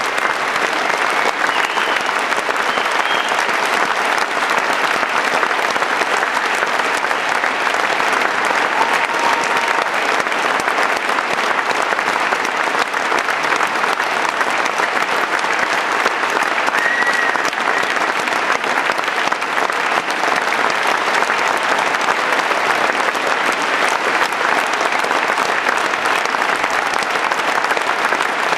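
Large theatre audience applauding densely and steadily, a long closing ovation for the cast at the curtain call.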